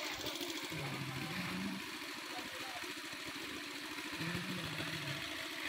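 An engine running steadily at idle with a fast, even chug. Two short low tones, each about a second long, sound over it, once early and once past the middle.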